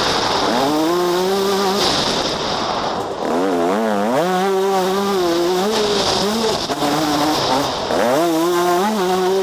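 Yamaha YZ125 single-cylinder two-stroke motocross engine revving hard under acceleration, its pitch climbing sharply about half a second, three seconds and eight seconds in, holding high and then dropping off each time. Wind rushes over the microphone.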